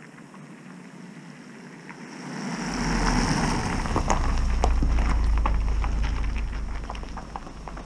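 Estate car driving close past on a gravel road. Its engine and tyres rise to a rush a couple of seconds in, with a steady deep rumble. Loose gravel then crackles and pops under the tyres as it passes and pulls away.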